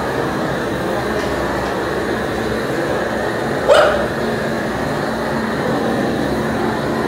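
A dog barks once, sharply, a little past the middle, over a steady rushing noise.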